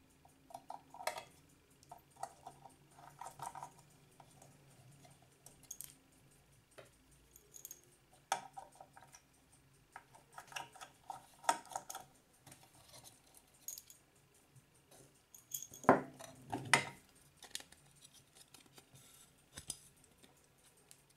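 Small metal clicks, taps and scrapes of a watchmaker's screwdriver on the screws of a ship clock's movement plate, and of the metal parts being handled. Two louder knocks come about three-quarters of the way through.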